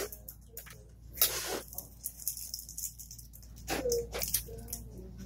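Blue protective tape being peeled off a new sewing machine's plastic casing: a brief rasp of tape coming away about a second in, with scattered light clicks and rustles of handling.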